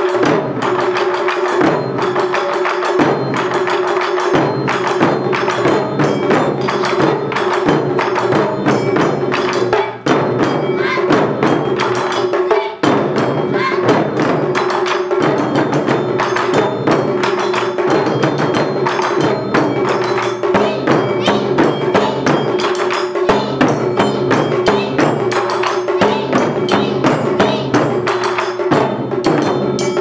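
Taiko ensemble drumming: large barrel drums (nagado-daiko) struck with wooden bachi sticks in a fast, driving rhythm, with dense strikes throughout.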